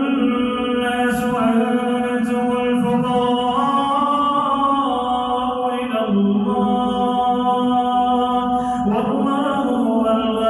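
A male reciter chants the Quran in a slow, melodic style, holding long drawn-out notes that shift pitch every few seconds.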